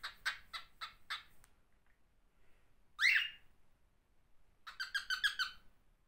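Cockatiel calling: a run of short, sharp chirps at the start, one loud rising call about three seconds in, and a quick string of chirps near the end.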